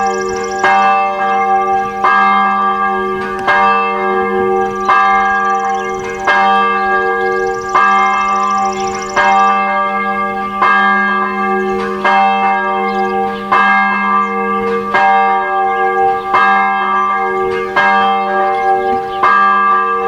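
Church bells ringing, a new stroke about every second and a half, each ringing on into the next over a steady low hum.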